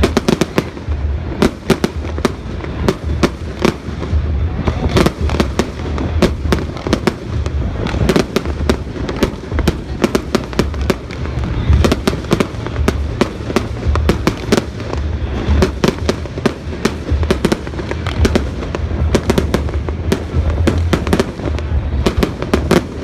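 Fireworks display: a rapid, continuous string of sharp bangs and crackles, several a second, over a low rumble.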